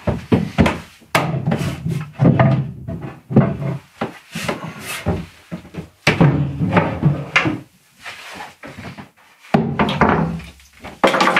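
Irregular wooden knocks, thumps and scrapes as the wooden companionway steps of a plywood boat's cabin are handled and lifted out to open up the engine space.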